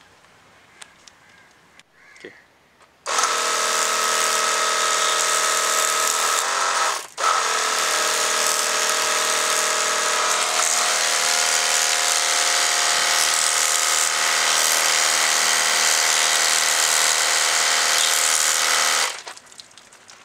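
Pressure washer running, a steady motor-and-pump hum under the hiss of the water jet spraying onto a boat's outboard bracket. It starts about three seconds in, cuts out for a moment near seven seconds, and stops near the end.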